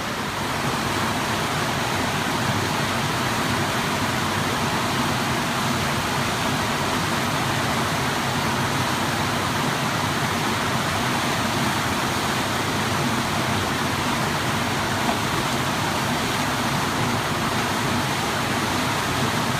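Steady rush of white water pouring over a river surf wave and rapids.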